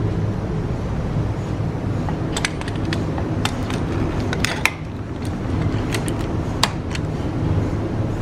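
Irregular sharp metal clicks and clinks from tools and brake parts being handled, bunched in the middle few seconds, over a steady low rumble.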